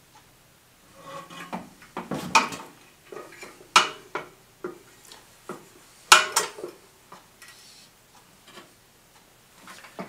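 Metal clinks, knocks and scraping of a spoked front wheel's hub and spindle being worked into a motorcycle's front forks, a string of irregular knocks with the loudest about four and six seconds in, as the wheel will not fit.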